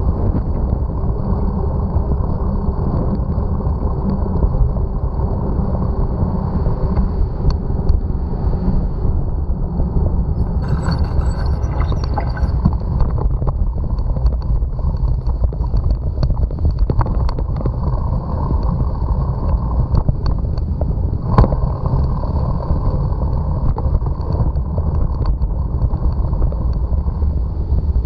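Steady low rumble of wind and tyre noise on an action camera riding along on a bicycle, with a faint steady high whine over it. A short hissing rattle comes near the middle, and one sharp knock about two-thirds of the way through.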